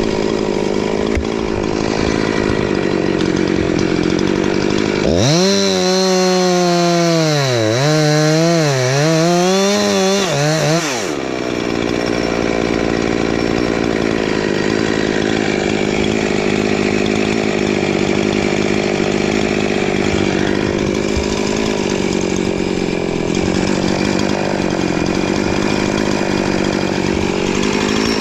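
Two-stroke chainsaw running hard as it cuts a slot into a birch stump. Partway through, for about six seconds, the engine note repeatedly dips and recovers as the chain bites into the wood, then settles back to a steady note.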